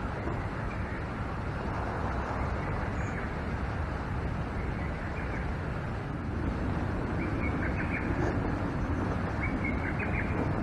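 Small birds chirping a few short calls, clearest in the second half, over a steady rushing outdoor background noise.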